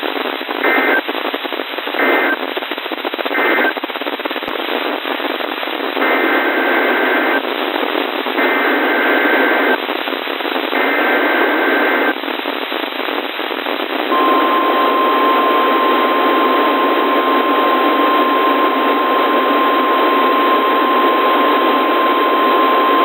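NOAA Weather Radio alert signals over radio static. First come three short SAME digital data bursts marking the end of a message, then three longer SAME header bursts, all buzzy two-tone squawks. About 14 seconds in, the steady 1050 Hz warning alarm tone starts and holds, signalling that a new warning follows.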